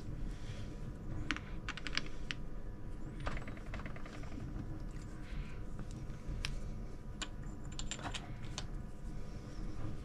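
Light metal clicks and short runs of rapid ticking from a Pratt Burnerd Grip Tru three-jaw lathe chuck as its scroll is wound with a T-handle chuck key and its jaws are handled. There is a quick rattle about three seconds in and a few sharper clicks later on.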